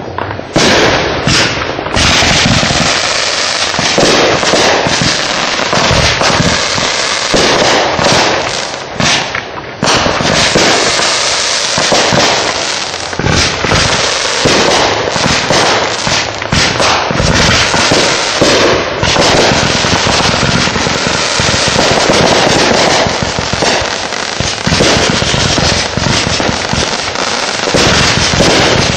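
A barrage of consumer firework cakes going off without a break: dense crackling mixed with rapid bangs.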